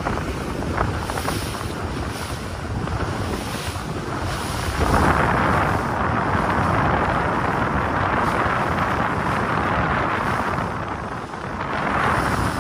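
Wind buffeting the microphone over the rush of water along the hull of a moving boat. The water rush grows louder about five seconds in and swells again near the end.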